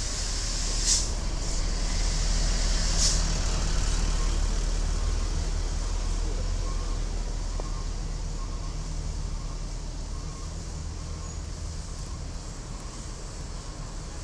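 Large tour bus's diesel engine running at low revs, with two short sharp air-brake hisses, about a second in and about three seconds in; the engine drone slowly fades over the second half.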